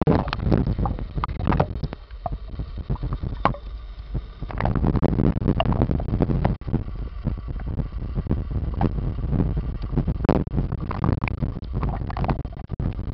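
Muffled underwater sound picked up by a camera held under water while snorkelling: a steady low rumble of water with many short knocks and clicks.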